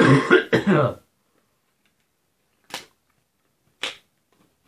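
A man coughing into his hand: a rough run of coughs for about the first second, then two single short coughs about a second apart. It is the lingering cough he still has after being ill.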